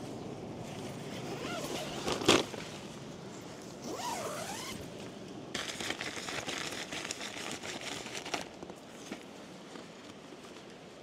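The nylon door zip of an OEX Hyena II tent is drawn along in one rasping run of about three seconds, starting a little past the halfway mark. It comes after a single sharp knock about two seconds in, the loudest sound.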